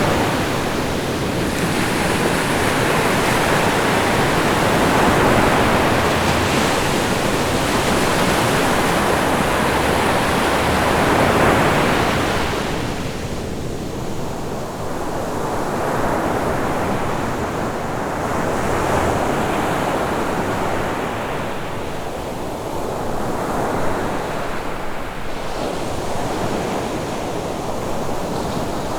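Rough sea: waves breaking and surging continuously, the roar swelling and easing in slow surges, with wind.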